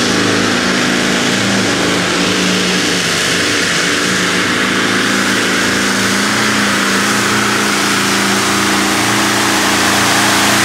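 A competition pulling tractor's engine running loud at high, fairly steady revs under load during a pull.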